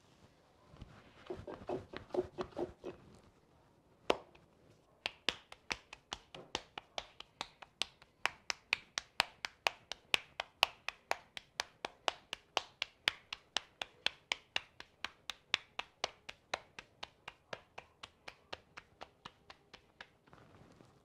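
Corn masa being patted out by hand into a tortilla: an even, rhythmic slapping of palms on the dough, about three to four pats a second, starting about five seconds in after a few duller sounds of handling the dough.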